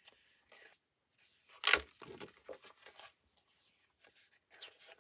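A paper page of a spiral-bound desk calendar being flipped over: a sharp flap of paper about two seconds in, then softer paper rustling.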